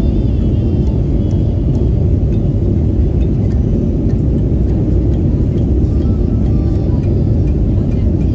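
Jet airliner cabin noise in flight: the steady low rumble of the engines and the air rushing past the fuselage, heard from a window seat.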